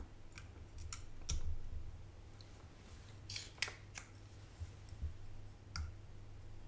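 Scattered small clicks and taps of tools being handled against a power supply circuit board during desoldering, with a sharper cluster of clicks about three and a half seconds in, as the soldering iron and a spring-loaded desoldering pump are set to the joints.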